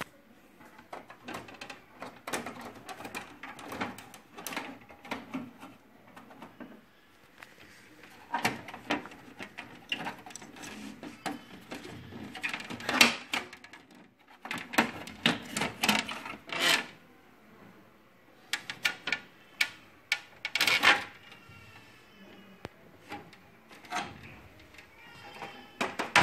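Plastic and metal parts of an HP LaserJet P3005 printer being handled and worked on: irregular clusters of clicks, knocks and rattles with short pauses between them.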